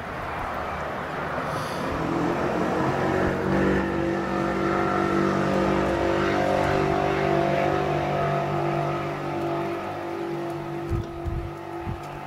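An engine running steadily, building up about two seconds in and easing off near the end. A few sharp knocks come near the end.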